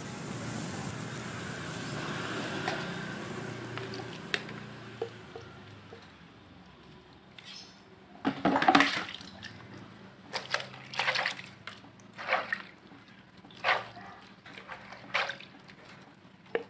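Water poured from a scoop over a wet cat, running and splashing into the tray, fading off after a few seconds. Then a series of about seven short, sudden splashes and sloshes, the loudest about halfway through, as hands work water through the cat's fur.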